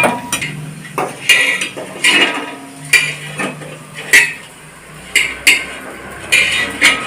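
Metal spatula scraping and clinking against an iron tawa in a series of short, sharp strokes, lifting fried fish-roe patties off the griddle.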